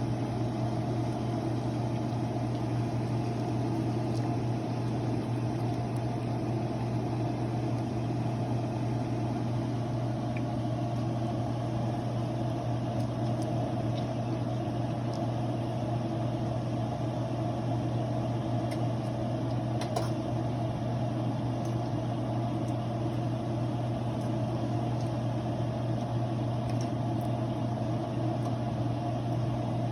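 Steady low hum of a running motor or fan, unchanging throughout, with a few faint clicks.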